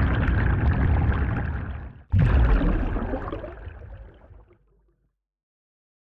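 Liquid pouring and gurgling over wet granules, which cuts off abruptly about two seconds in. A second pour starts at once and fades away over the next three seconds.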